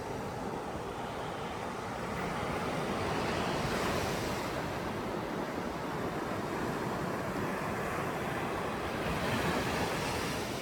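Strong Mediterranean surf breaking and washing on the beach, a steady rush of waves that swells a couple of seconds in.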